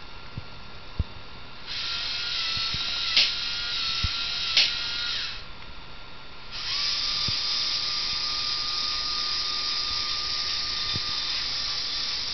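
Robot arm's small electric motors whirring as the arm moves: one run of about three seconds with two sharp clicks in it, a short pause, then a long steady whir.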